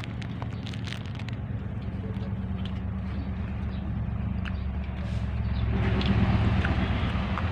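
A motor engine running steadily, swelling louder for a couple of seconds near the end.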